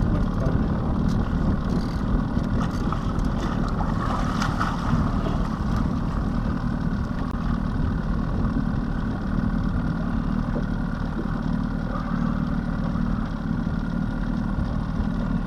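40-horsepower outboard motor idling steadily, a low even rumble.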